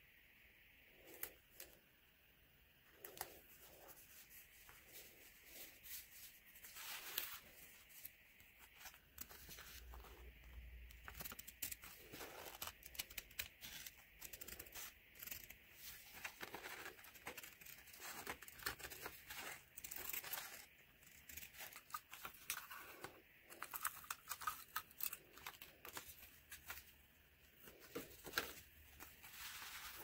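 Faint close-up paper-craft handling: paper and washi tape rustling, peeling and tearing in many small scrapes and crackles, with scissors snipping through card partway through, over a faint steady hiss.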